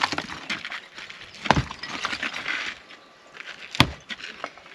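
Two heavy demolition blows struck against an old wall, about two seconds apart, with debris clattering and crumbling between them.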